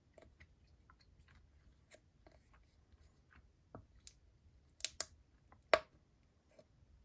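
Thin clear plastic blister tray crackling and clicking under the fingers as a gummy is worked out of its moulded cell. Faint small ticks at first, then two sharp crackles just before five seconds in and a louder one near six seconds in, as the gummy comes free.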